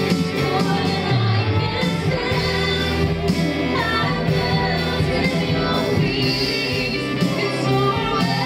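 Live worship band music with singing: sustained instruments and voices carrying a slow praise song.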